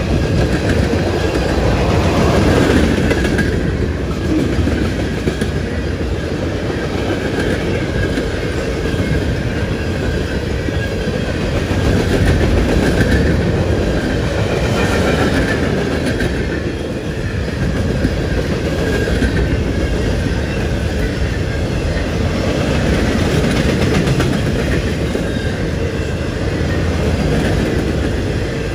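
Freight cars of a long CSX mixed freight train (tank cars, covered hoppers and boxcars) rolling past close by. A steady rumble and rattle of steel wheels on the rails that swells and eases every few seconds.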